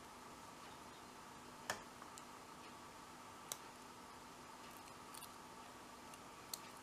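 Quiet, sparse clicks of a pick and tension wrench working the pins of a five-pin padlock during single pin picking: three sharp clicks, the loudest about two seconds in, over a faint steady hum.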